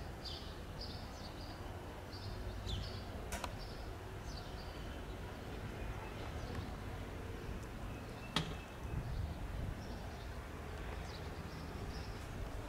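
Birds chirping in short, repeated calls over a steady low rumble of outdoor background noise. Two sharp knocks cut through, one about three seconds in and a louder one past the middle.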